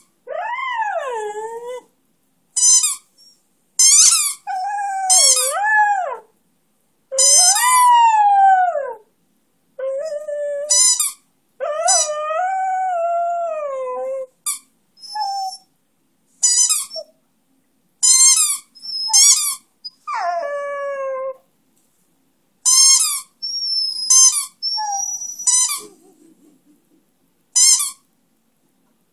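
Beagle–schnauzer mix howling along with his squeaky toy: short, high squeaks from the toy alternate with the dog's drawn-out, wavering howls, each a second or two long, over and over.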